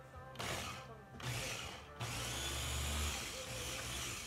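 Small press-top electric food chopper's motor whirring as it blends jalapeños. It runs in two short pulses, then steadily from about halfway, with a low motor hum under the blade noise.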